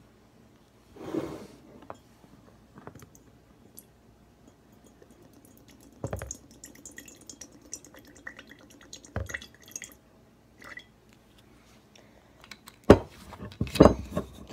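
Soy sauce being poured from a glass bottle into a glass mason jar mug, trickling and dripping. A few knocks, with the loudest sharp glass clinks near the end.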